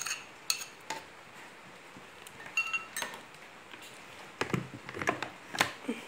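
A glass bowl and plastic spatula knocking and clinking against a plastic blender jug as sugar is scraped in, with scattered short knocks and one brief ringing clink about two and a half seconds in.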